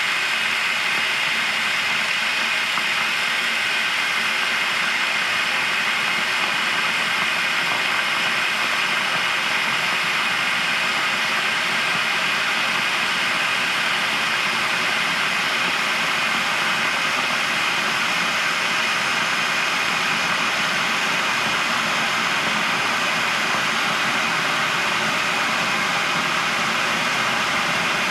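Kettle boiling: a steady rushing noise of water at the boil, even in level throughout.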